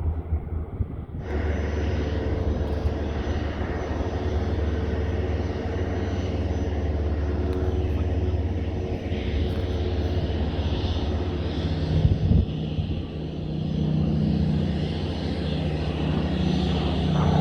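Steady aircraft engine noise: the Spitfire's Rolls-Royce Griffon V12 in the overhead break, mixed with the engines of a taxiing Cessna Citation business jet. A stronger, higher drone comes in about ten seconds in.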